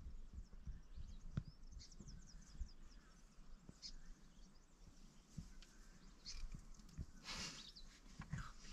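Quiet outdoor bush sound: a run of quick, high birds' chirps about two seconds in, a few soft clicks, and a brief rustle about seven seconds in.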